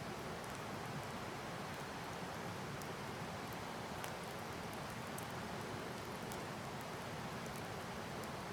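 Wood campfire burning: a steady hiss with scattered small crackles and pops.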